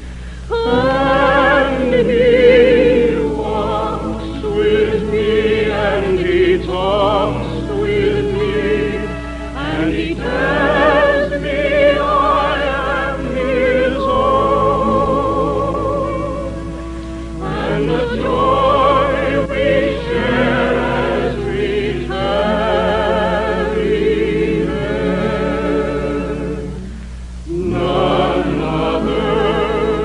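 Operatic soprano singing a slow old hymn with strong vibrato, in long phrases with short breaks between them, over musical accompaniment.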